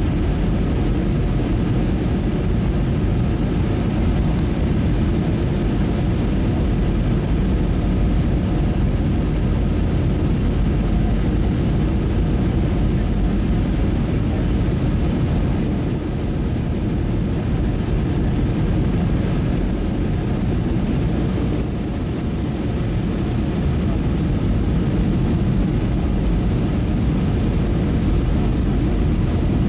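Steady low cabin roar of a Boeing 757 airliner on final approach, heard from inside the passenger cabin, with no distinct events.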